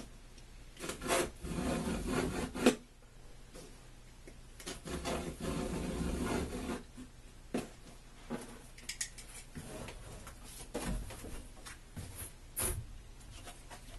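Carpenter's knife scoring the back of a hardboard marker-board panel in long scraping strokes, with a few sharp clicks and knocks between them.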